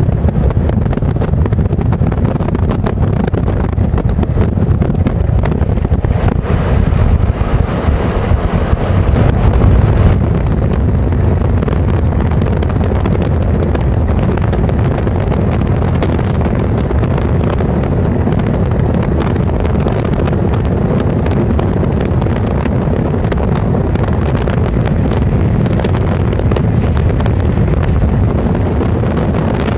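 Steady road and wind noise from inside a moving car at speed, swelling slightly about ten seconds in.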